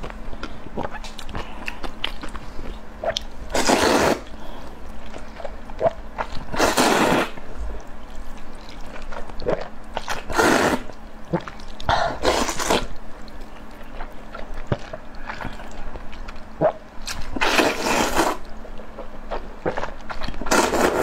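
Close-miked slurping of noodles from a spicy red sauce: about six long, wet slurps spread through, with chewing and small clicks between them.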